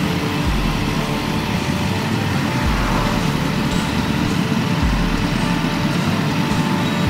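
Motorcycle engines running steadily at low speed in a group ride, heard from the rider's own bike, with wind rumbling on the microphone every couple of seconds.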